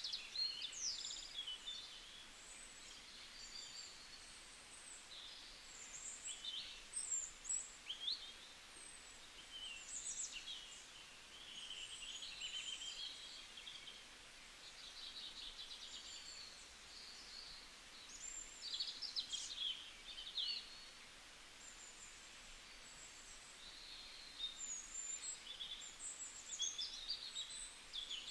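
Several songbirds singing and chirping in a forest, with overlapping short whistles and trills, over a faint steady background hiss.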